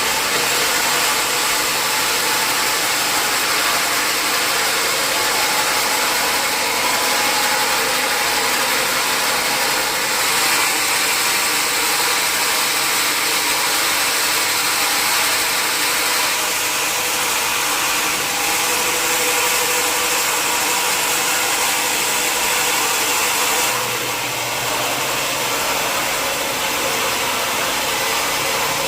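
Sawmill machinery running steadily: a saw and its motor make a loud, even hiss and hum, and the tone shifts slightly a few times.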